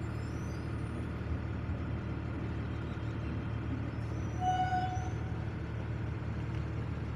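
Steady low rumble inside a truck's cab, its engine idling, while a local electric train passes close by. A short high-pitched tone sounds about four and a half seconds in.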